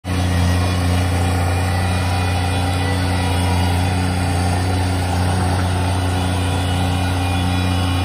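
Engine of a tracked stand-on mini skid steer running at a steady speed, with an even, unchanging drone.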